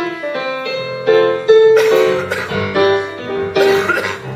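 Piano playing a song's intro, a melody of held notes over chords, to give a singer his key.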